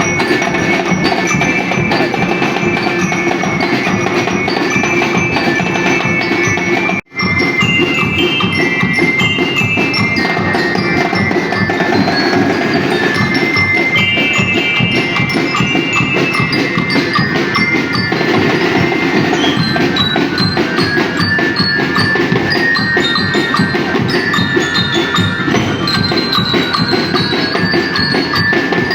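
Music: a fast clicking beat under a high, stepping melody. It cuts out for an instant about seven seconds in.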